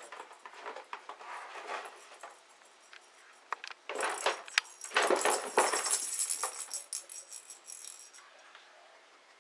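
A cat batting at and pushing around an empty cardboard beer case on a carpet: irregular rustling and scraping of the cardboard with sharp little knocks. The loudest flurry comes about four seconds in and lasts a few seconds before it dies down.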